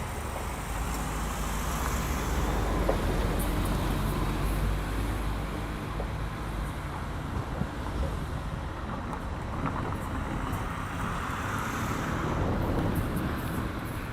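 Steady low rumble of a vehicle running, with a few light clicks.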